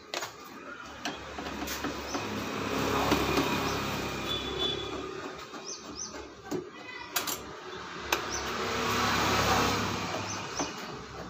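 Street traffic passing, swelling twice, with short bird chirps and a few sharp metallic clicks from a screwdriver working the screws of a scooter's front cover.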